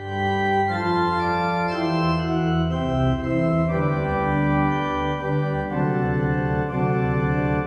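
Organ music: slow, sustained chords that move to a new chord every second or so.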